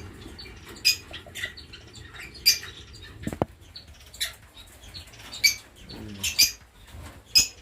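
Caged lovebirds giving short, sharp, high-pitched chirps every second or so, with a single dull knock about three and a half seconds in.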